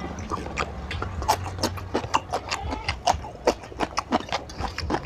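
A person chewing noisily close to the microphone, wet smacking clicks of the lips and mouth coming several times a second.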